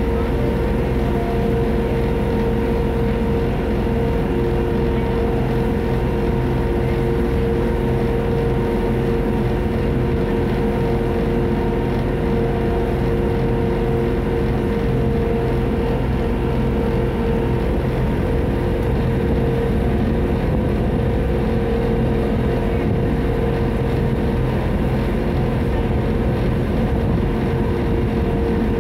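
Friendship ferry boat under way, its engine running at a steady, even drone with a few constant hum tones.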